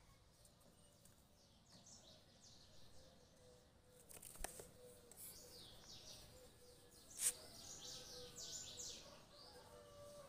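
Faint birds chirping in quick runs of short, high, falling chirps. There are two sharp clicks, the louder one about seven seconds in.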